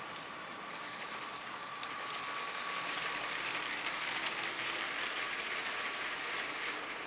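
Lego trains running on plastic track: small electric motors whirring with a steady high whine, and plastic wheels clicking and rattling over the track. The sound grows louder about two seconds in as a train passes close by.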